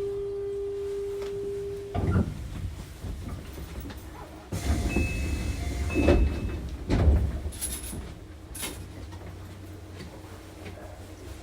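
Inside a Keio 7000 series train car, a steady tone cuts off with a thud about two seconds in. Rumbling and several heavy clunks follow, typical of the car's sliding doors working.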